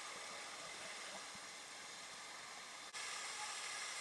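Steady rushing hiss of waterfalls splashing into a lazy river, with a brief break about three seconds in, after which it is a little louder.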